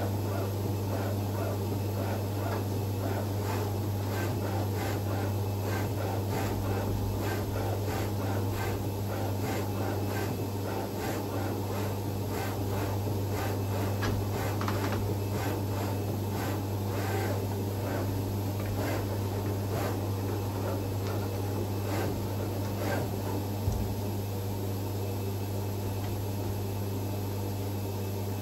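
Vulcan FC-500VC flatbed cutting plotter at work while it reads its registration marks: a steady low hum, with the tool head and gantry moving about in rapid clicks and whirs. The clicking stops with one sharp click about five seconds before the end, leaving the steady hum.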